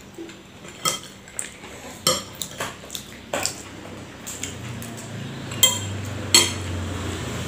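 Metal spoon clinking and scraping against a ceramic plate while scooping rice, a series of sharp separate clinks, the loudest two near the end.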